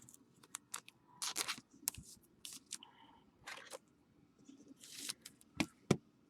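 Trading cards and their plastic sleeves being handled: faint rustling, scraping and crinkling, with two sharp clicks near the end.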